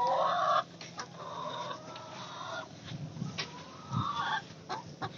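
Rhode Island Red hens clucking and calling: a loud call right at the start, a longer one about a second in, and a shorter one around four seconds in.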